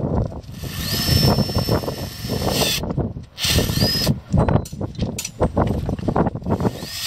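Handheld power wrench running up M24 Hardlock nuts on the bolts of a rail fishplate joint, in three runs: a long one of over two seconds starting about half a second in, a short one past the middle, and one beginning at the very end. Each run starts with a rising whine as the motor spins up and then holds steady. Between runs there are knocks of the tool and steel.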